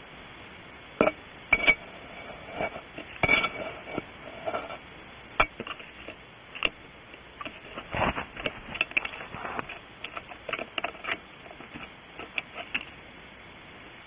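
Irregular knocks, taps and scrapes of a bird's feet and body moving about inside a nest cavity, dozens of them over a steady hiss. The scuffling starts about a second in and dies away near the end.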